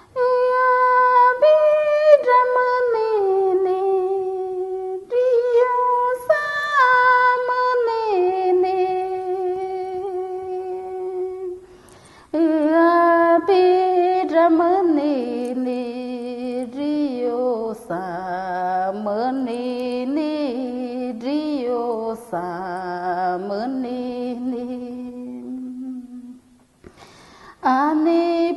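A woman's solo voice humming the wordless melody of an ayahuasca icaro (healing ceremony song). It runs in long held phrases with wavering, trilled ornaments, broken by short pauses about 5 and 12 seconds in and near the end. The third phrase sinks lower in pitch.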